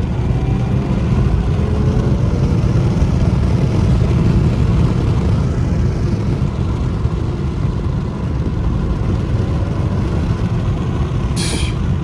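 Infiniti Q50's twin-turbo VR30 V6, fitted with lower downpipes, running under way and heard from inside the car: a steady low drone of engine and road noise with the engine note slowly rising in the first half. A brief hiss sounds near the end.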